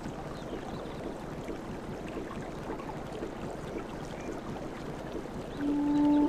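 Steady wash of sea waves. Near the end a low held note on an indigenous-style wooden flute comes in over it.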